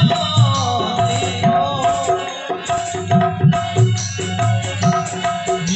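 Harmonium and hand-drum accompaniment to a devotional bhajan: the harmonium sustains a steady held note under a melody while the drum keeps a regular beat of low strokes.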